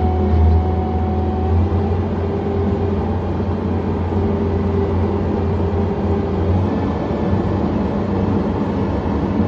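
John Deere 317 skid steer's engine running steadily under way, a low, even hum; its note shifts about two-thirds of the way in.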